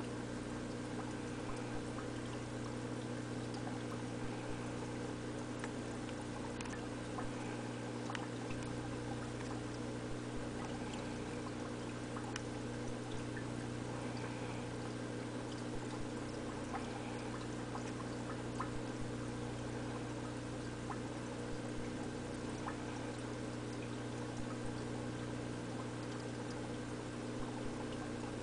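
Aquarium filter running steadily: an even electrical hum with water trickling and pouring. Faint small clicks now and then.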